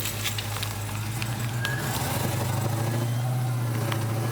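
Supercharged 6.2-litre Hellcat HEMI V8 in a 1969 Dodge Charger running with a steady low drone that gets a little louder about halfway through.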